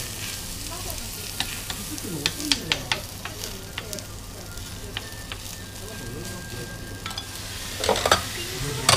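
Okonomiyaki batter sizzling on a hot tabletop iron griddle while it is stirred and spread with a spoon and metal spatula, which click and scrape against the plate. A louder metallic clatter comes near the end.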